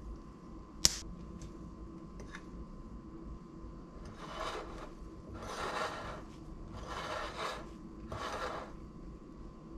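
A single sharp click about a second in, then a spoon scraping through flour against a ceramic bowl in four rasping strokes as the dry ingredients are stirred.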